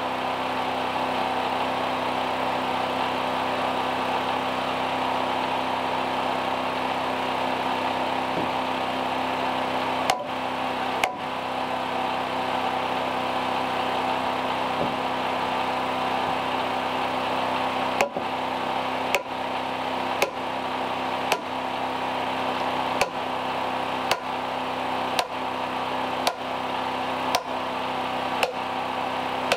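Hammer blows on a log handrail: two strikes about a second apart, a pause, then a steady run of about ten blows at roughly one a second. A steady hum runs underneath.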